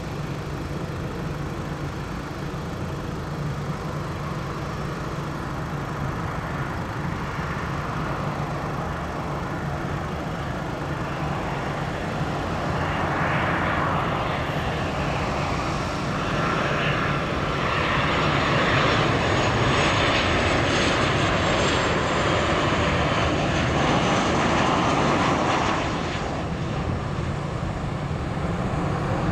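Boeing 737-800's CFM56-7B jet engines on final approach, growing steadily louder as the airliner nears over a low rumble. It is loudest in the second half, with a high engine whine that drifts slightly down in pitch, and eases off a little near the end as the jet passes just before touchdown.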